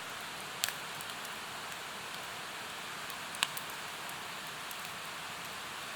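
A mountain stream rushing steadily, with firewood crackling in a campfire: two sharp pops, one about half a second in and one about three and a half seconds in, and fainter ticks in between.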